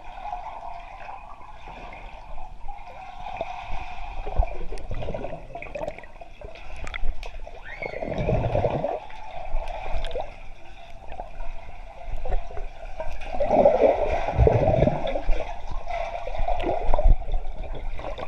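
Muffled underwater sound of a swimming pool, heard through a GoPro's waterproof housing: swirling water and bubbles from swimmers moving close by, swelling louder and deeper about eight seconds in and again around fourteen seconds.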